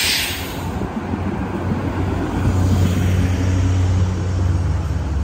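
Street traffic with city buses and cars passing: a short burst of hiss at the start, then a steady low engine drone that builds from about a second in.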